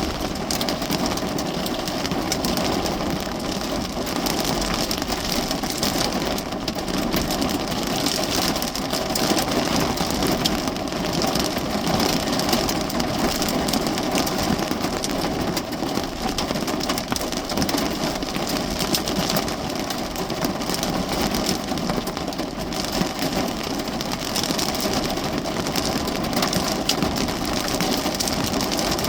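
Steady rain pattering on the roof and windows of a parked car, heard from inside the cabin.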